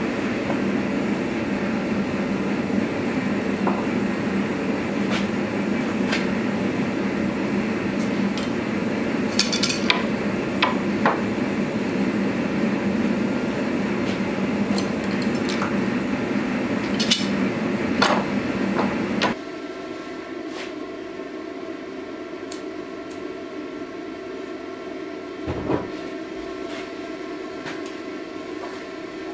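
Sharp metallic clanks and knocks of steel being handled and clamped over a steady roar with a low hum. About two-thirds of the way through the roar drops to a quieter, steady hum, and near the end there is a single dull thump.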